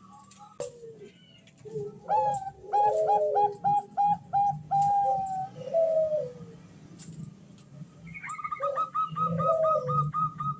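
Female zebra dove (Bangkok perkutut) calling to a male: a run of short clipped coos beginning about two seconds in, with lower rolling coos beneath. Near the end comes a fast series of higher, evenly spaced notes.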